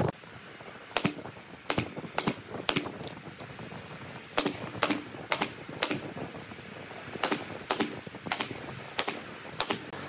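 Pneumatic brad nailer, driven by a coiled air hose, firing nails through wooden cleats into a board: about a dozen sharp shots in groups of three or four, roughly half a second apart.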